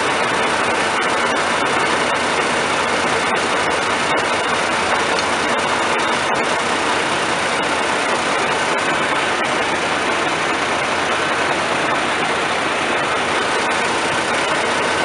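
New Holland CR combine's engine running steadily, supplying hydraulic oil to the rotor reverser.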